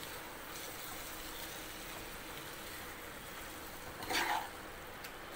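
Chicken and ground masala paste frying in a pan, a low steady sizzle as it is stirred, with a brief louder sound about four seconds in.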